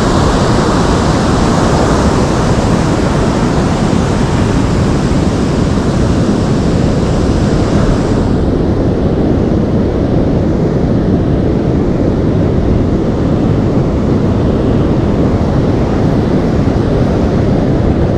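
Steady loud rush of wind on the microphone mixed with ocean surf. The higher hiss eases off about eight seconds in.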